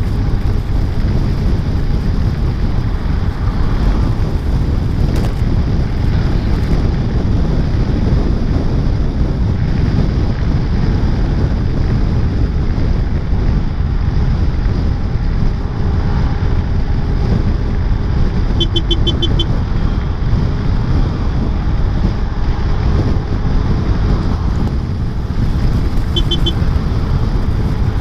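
Motor scooter riding in rain and heavy traffic, its engine and the traffic buried under a loud, steady rumble of wind and rain on the microphone. A short run of rapid beeps sounds about two-thirds of the way through and again near the end.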